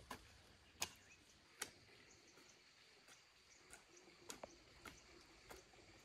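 A run of short, sharp knocks or taps, roughly one every two thirds of a second. The two loudest come in the first two seconds and fainter ones follow, over a faint steady background.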